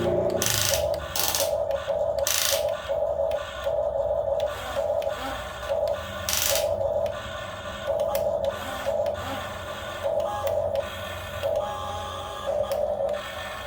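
Small electric motor of a radio-controlled excavator whining in short stop-start spells as the controls are worked. A few brief hissy or scraping bursts break in.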